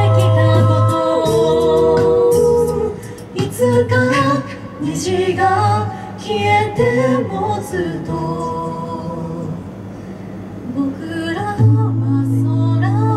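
A five-voice a cappella group singing live: chord harmonies over a sung bass line, with sharp percussive clicks on top. The bass drops out about three seconds in and comes back strongly near the end.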